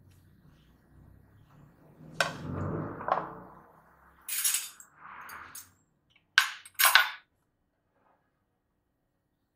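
Hard objects being handled: a sharp knock about two seconds in with a low rumble, short scraping noises, then two loud sharp clinks half a second apart near the middle, like kitchenware set down.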